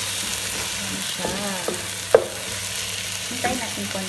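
Lamb pieces sizzling steadily in tomato sauce in a pot while a wooden spatula stirs and scrapes them, with a sharp knock of the spatula against the pot about two seconds in.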